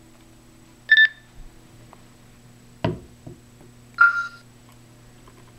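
KT-10 magnetic susceptibility meter beeping through a measurement: a short beep about a second in, a sharp knock near three seconds as the meter is set down on the sample, and a lower beep about four seconds in, signalling each stage of the free-air and sample reading.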